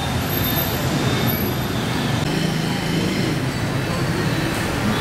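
Steady city street traffic noise, with faint voices mixed in.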